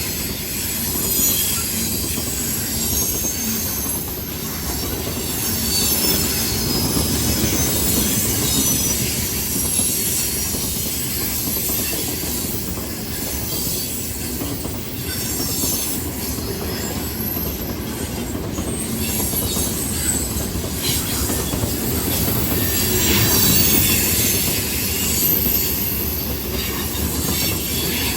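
Loaded freight grain train rolling past on a curve: a steady rumble of wheels on rail with occasional clicks over the rail joints, and wheel flanges squealing high-pitched against the rails throughout.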